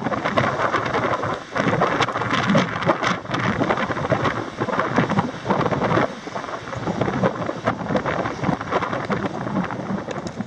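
Strong wind buffeting the microphone: a loud, rough rushing noise that surges and dips in gusts, with brief crackles.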